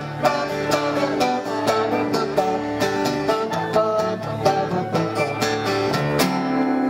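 Acoustic guitar playing a fast picked instrumental passage in a country style, ending the song on a held final chord about six seconds in.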